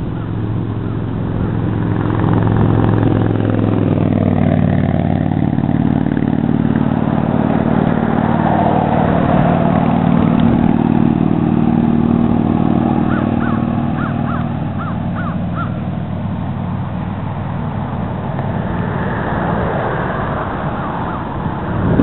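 A motor vehicle's engine passing on the highway: a steady hum that builds over a couple of seconds, holds, and fades away after about twelve seconds. Crows call in the background, with a quick run of short calls near the middle.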